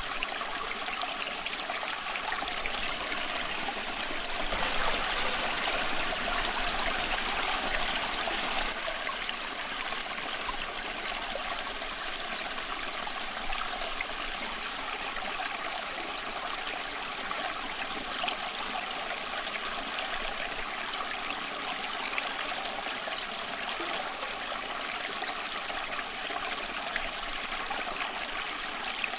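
Small creek flowing and trickling over stones, an even rushing with fine splashes, a little louder for a few seconds near the start.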